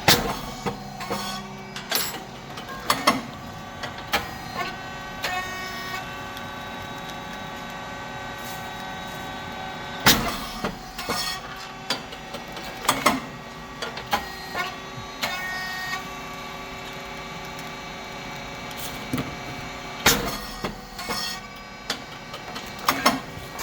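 SYP35140 puffed rice cake machine running its production cycle: about every ten seconds a loud sudden pop with a clatter as the heated moulds open and the rice cakes puff out, three times, with smaller clicks and knocks from the moving moulds between. Under it a steady hum from the machine's hydraulic motor pump.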